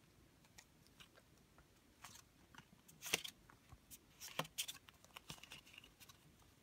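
Faint clicks and crisp scrapes of a stack of Pokémon trading cards being handled and squared up in the hands, with a couple of sharper snaps about three and four and a half seconds in.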